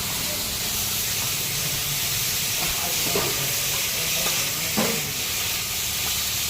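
Chicken frying in a pan with a steady sizzle, with a couple of short knocks about three and five seconds in.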